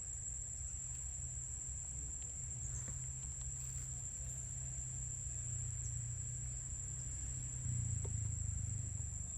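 Steady high-pitched insect drone, cricket- or cicada-like, over a low rumble that grows louder near the end.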